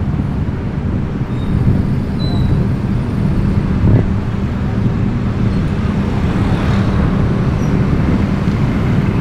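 Street traffic noise: a steady low engine drone with road noise, motor scooters running close by, and a brief knock about four seconds in.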